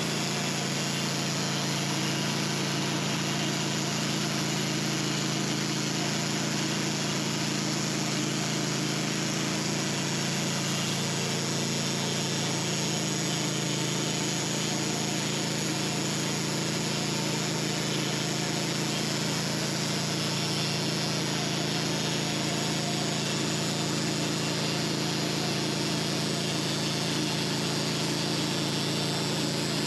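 Sawmill running steadily under load as its blade cuts a slab from a large oak log, engine drone under the constant noise of the cut.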